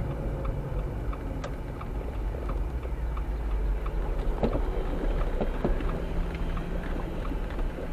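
Vehicle running on the move, heard from inside as a steady low rumble, with a light, regular ticking and a few clicks and rattles.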